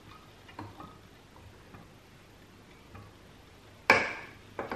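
Wooden spatula laying par-cooked basmati rice into a stainless steel pot: a few faint soft ticks, then a sharp knock with a short metallic ring about four seconds in and a smaller knock just before the end as the spatula strikes the pot.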